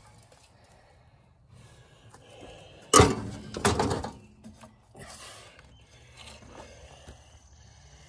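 A removed sheet-metal cooling shroud from a Wisconsin air-cooled engine clatters as it is set down, with one loud hit about three seconds in and a second, shorter rattle just after. Faint handling noises follow.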